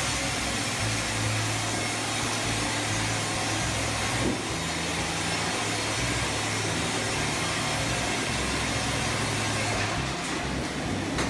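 Heavy machinery running steadily, a continuous mechanical noise over a low hum, with a brief knock about four seconds in.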